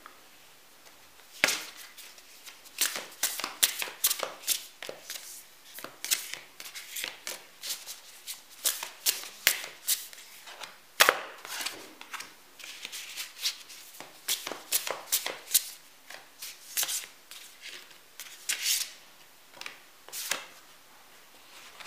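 Tarot cards being handled and laid out on a cloth-covered table: a run of quick card flicks and slaps with short pauses, starting about a second and a half in.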